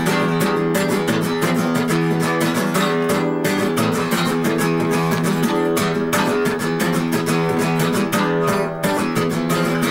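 Acoustic guitar played fast, with dense, rapid strumming and ringing chords.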